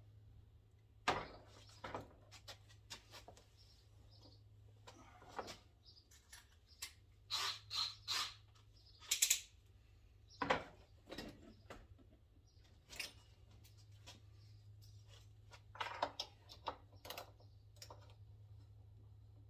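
Metal hand tools being handled and rummaged through on a workbench: scattered clicks, knocks and clatter, with a run of brief scraping sounds in the middle. A steady low hum runs underneath.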